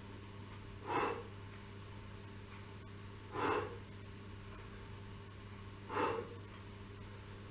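A man breathing out hard three times, about every two and a half seconds, one short breath with each kneeling push-up. A steady low hum sits underneath.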